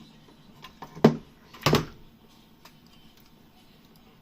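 Two short, loud knocks about two-thirds of a second apart, from the amplifier being handled on the workbench, over a faint steady hum.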